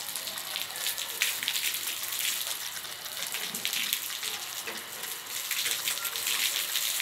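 Water from a hose falling on the glass of solar panels: a continuous spatter of many small droplet impacts over a steady hiss, like rain.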